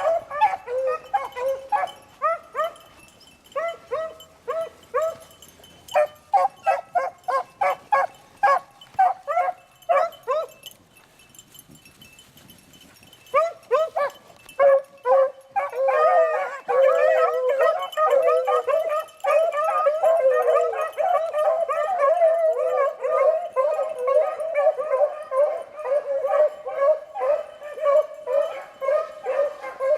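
A pack of beagles baying as they run a rabbit's scent trail: quick strings of repeated bawling yelps, a lull of a couple of seconds about a third of the way in, then many hounds in full cry together, overlapping without a break.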